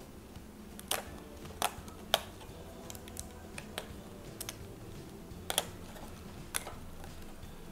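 Clear plastic letter sheets and black plastic letters for a cinema light box handled and sorted, with irregular sharp clicks and taps as the pieces knock together and against the glass tabletop. A steady low hum runs underneath.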